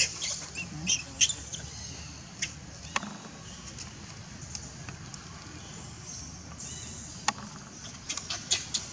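Baby macaque squeaking: short, high-pitched squeals and chirps, a quick cluster in the first second or so, a few scattered single squeaks, and another run near the end.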